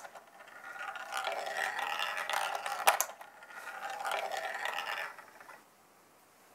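A marble rolling along the 3D-printed plastic track of a marble run, a ringing rolling rumble that comes in stretches, with a sharp click about three seconds in. The rolling fades out about a second before the end.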